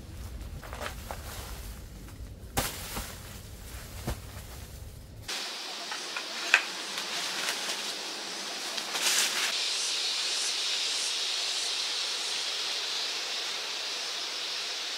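Outdoor sounds: low rumble with a few sharp knocks, then an abrupt change about five seconds in to a steady high hiss with occasional clicks.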